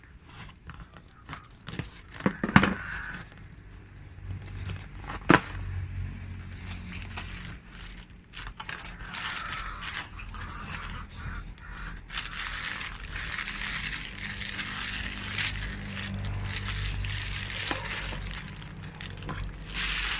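Cardboard parcel being opened: scissors cutting the packing tape and flaps, with a few sharp knocks in the first few seconds, then a long stretch of crinkling and rustling as the plastic bubble-wrap packing is pulled out.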